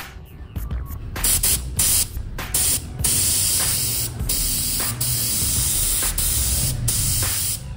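Handheld paint spray gun hissing as it sprays paint onto a car body panel, in runs of a second or more broken by short gaps where the trigger is let off.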